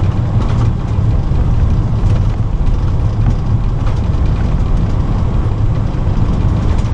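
Steady low rumble inside the cockpit of an Airbus A320 rolling along the runway after landing: tyres and landing gear on the runway surface together with engine and airflow noise.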